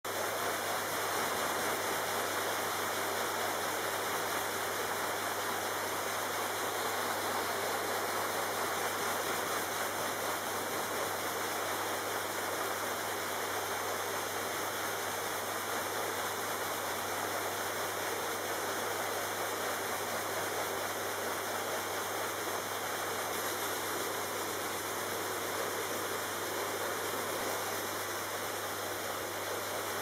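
Vacuum cleaner running steadily, its brush nozzle on the hose working over a quilted bedspread: a constant rushing hiss with a low hum underneath.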